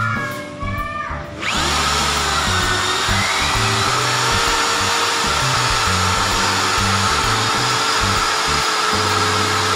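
Mailtank 13 mm electric impact drill starting up about a second and a half in, then running steadily at high speed with a constant whine as its 10 mm bit bores into 5 mm steel channel. The high speed is, by the uploader's own admission, the wrong way to drill steel, which needs low speed and torque. Background music plays throughout.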